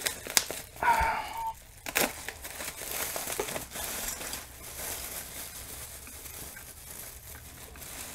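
Plastic bags and bubble wrap being handled and pulled apart, an irregular crinkling and crackling with scattered sharper snaps. A short pitched squeak comes about a second in.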